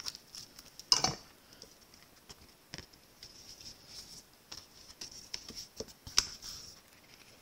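Cardstock being handled on a craft mat: light paper rustling and small taps, with two sharper knocks, one about a second in and one near the end.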